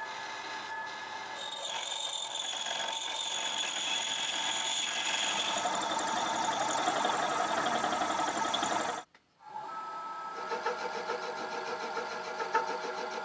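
Small metalworking machine tool running with a steady motor whine and a scraping, hissing cut that grows louder. It cuts off abruptly about nine seconds in, and after a moment's near silence a machine runs again with a fast, even pulsing.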